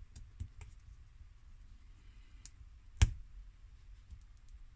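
A few faint clicks of small plastic toy parts being handled and folded, then one sharp tap about three seconds in.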